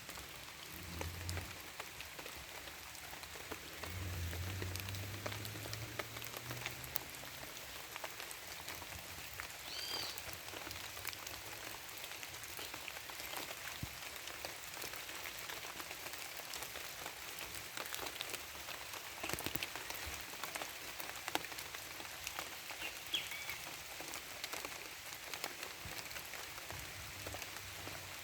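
Steady patter of rain, with many small drops ticking on surfaces. A bird chirps briefly a couple of times, and a low hum comes and goes in the first few seconds.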